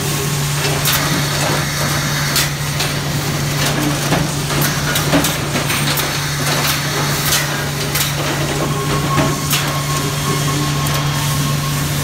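Sawmill machinery running with a steady low hum, and irregular sharp wooden knocks and clatter as squared timbers move along the roll and chain conveyors.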